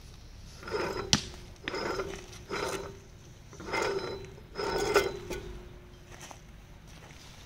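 Threaded metal valve fitting turned by hand on the neck of an old gas cylinder, grating in five short rubbing strokes with a sharp click about a second in and another near five seconds, as the cylinder is closed up.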